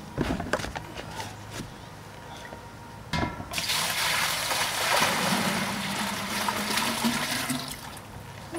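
About 4.5 gallons of water poured from a large plastic beverage cooler into a stainless steel stockpot. A few knocks and clicks as the cooler is handled and tipped, then about four seconds of water gushing and splashing into the pot, tailing off near the end.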